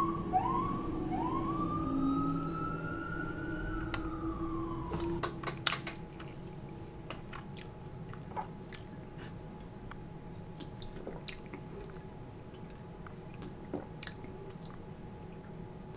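A siren wailing, its pitch climbing in a few short rising sweeps, then a long slow rise that falls away about four to five seconds in. After it come scattered soft clicks of chewing and a drink can being sipped from.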